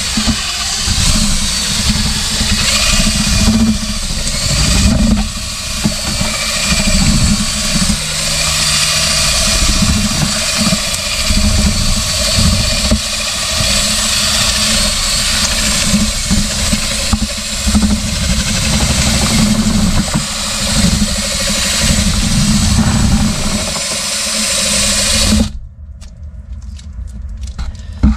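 Power drill turning a paddle mixer through a thick spackling-paste and latex-paint mud in a plastic bucket, running steadily, then stopping abruptly near the end.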